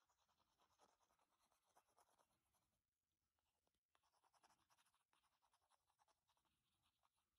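Near silence, with faint scratching from a glue tube's nozzle rubbing over a wooden wedge as glue is spread on it, in two stretches with a short pause about three seconds in.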